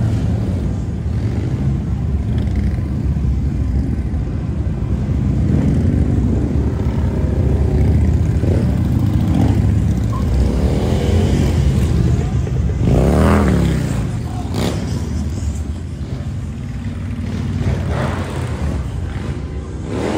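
A procession of large V-twin touring motorcycles riding past at low speed with a steady engine rumble. Several bikes rise and fall in pitch as they pass or rev, the loudest about thirteen seconds in.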